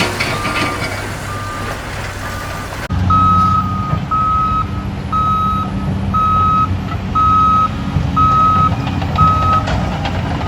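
A vehicle's reversing alarm beeping about once a second over a steady low engine hum. About three seconds in the sound cuts to a louder, slightly higher alarm that beeps eight more times.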